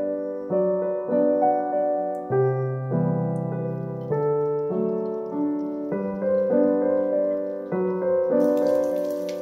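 Background piano music, chords struck at a steady, gentle pace. Near the end a hiss of eggs frying in hot oil joins in under it.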